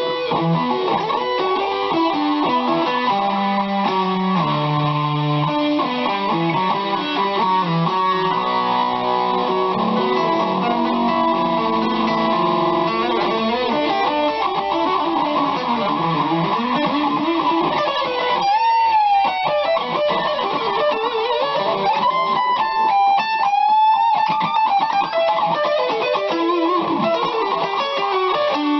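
BC Rich Mockingbird electric guitar on its neck pickup, played through a distorted rock tone: a run of picked single-note lines, with notes bent up and down in pitch in the second half.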